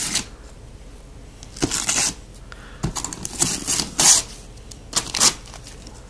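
Gift-wrapping paper being ripped and pulled off a cardboard box by a small child's hands, in several short tearing rustles.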